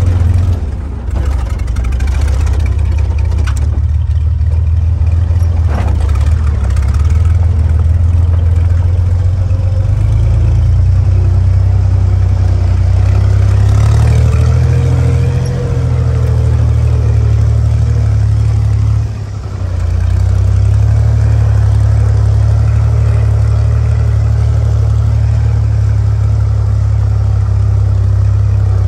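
1944 Willys Jeep's four-cylinder Go Devil engine running steadily as the jeep crawls up a rocky dirt trail, its low drone dipping briefly about a second in and again about two-thirds of the way through.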